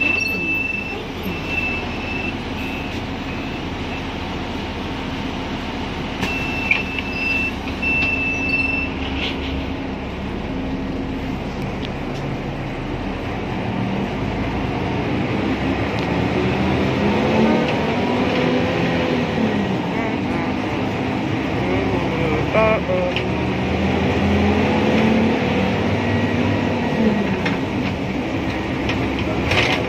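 Inside a city bus: a high warning beeper sounds in short runs of beeps while the bus stands with its door open. About fourteen seconds in, the bus engine pulls away, its pitch rising and falling through the gears as it speeds up.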